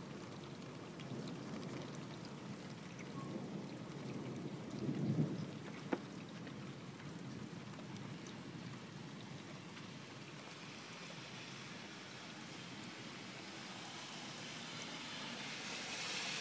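Steady rain during a thunderstorm, with a brief low rumble about five seconds in and a sharp click just after. A hiss slowly builds toward the end.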